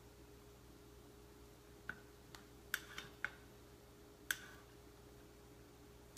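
Knife blade tapping on a ceramic plate while slicing butter into small cubes: about six short, sharp clicks at uneven intervals, starting about two seconds in.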